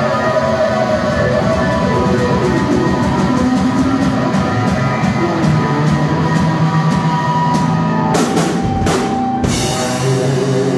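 A live rock band playing: two electric guitars through amplifiers with a full drum kit. Several cymbal crashes come near the end, and then the music stops abruptly.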